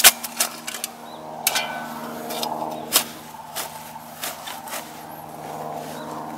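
Steel spade blade chopping and scraping into soil as it pares the sides of a tree's root ball: a handful of sharp strikes, the loudest about three seconds in. A steady low mechanical hum runs underneath.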